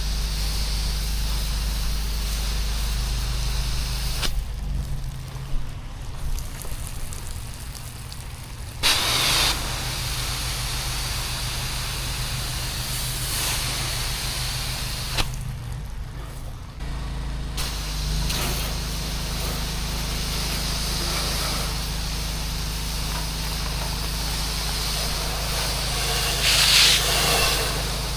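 Engine of a pressure-washing rig running steadily under the hiss of a water spray. The spray drops away twice for a few seconds and starts again.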